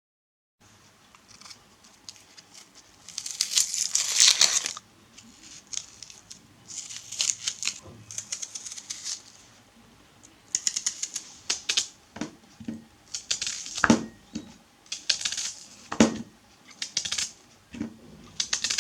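An onion being handled and prepared by hand: irregular bursts of dry crackling and scraping, like papery onion skin being worked, with a few sharp knocks later on.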